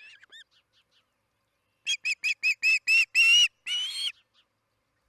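Osprey calling: a quick run of about six short whistled notes, then two longer, louder ones, with fainter chirps in the first half second.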